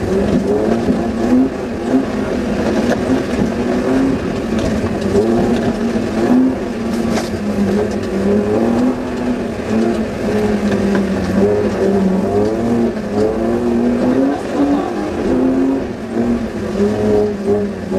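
Suzuki Vitara's engine heard from inside the cab, revs rising and falling unevenly as it is driven hard off-road. There is one short sharp knock about seven seconds in.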